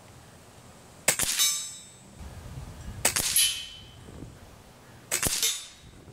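Air Venturi Avenger .22 regulated PCP air rifle firing three shots about two seconds apart, each a sharp crack followed by a brief high ringing.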